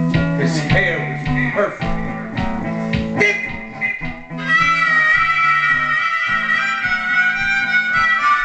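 Hohner Big River harmonica in D, played amplified through a Shure Green Bullet mic into a tube amp, over a looped guitar backing with a steady beat. For the first few seconds it plays short bent phrases; about four seconds in it moves into a long held chord.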